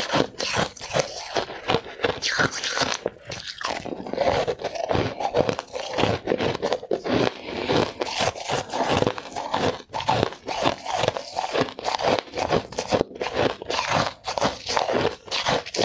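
Ice being bitten and chewed close to the microphone: a dense, continuous run of crisp crunches and crackles as the ice breaks up in the mouth.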